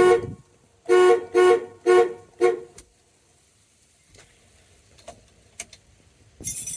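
Truck horn of a 1982 Chevy C10 sounded in five short honks over about three seconds, a steady two-note blare, tested after the steering wheel and horn contact were refitted. A brief rustling noise comes near the end.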